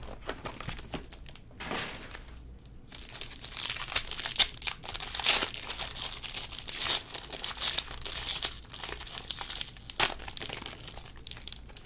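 Clear plastic wrapping on a box of trading cards crinkling and tearing as it is pulled open by hand: an irregular crackle with sharp snaps throughout.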